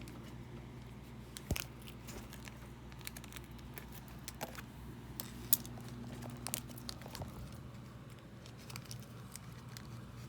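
Scattered light clicks and taps of a small plastic spoon against a plastic candy-kit tray while powder and water are mixed, over a steady low hum.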